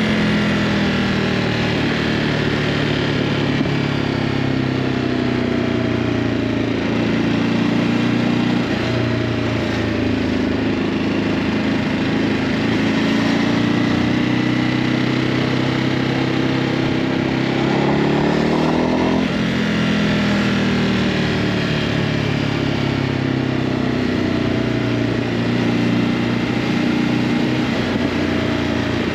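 Ducati Hypermotard 950's L-twin engine on its stock exhaust while riding: the engine note climbs slowly through a long pull, drops suddenly at a gear change about two-thirds of the way through, then climbs again.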